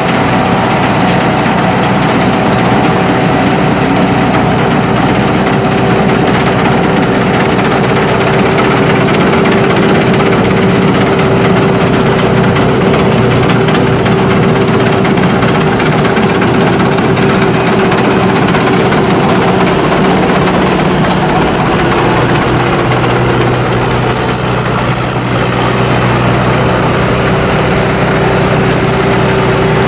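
Sakpattana SS-300 Black Bird combine harvester with its five-cylinder, 170-horsepower engine running steadily under load, with a thin, steady high whine over the engine. The level dips briefly a little over twenty seconds in.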